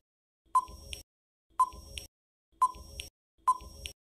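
Countdown-timer sound effect ticking about once a second, four short ringing ticks, timing the answer to a quiz question.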